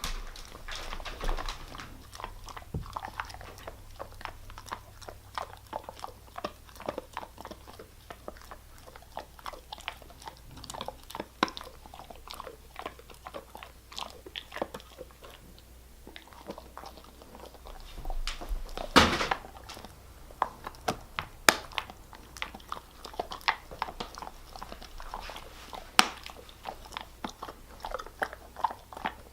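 German Shepherd chewing a hard dog treat: irregular wet crunches and clicks of its teeth, with a louder burst of crunching about two-thirds of the way through.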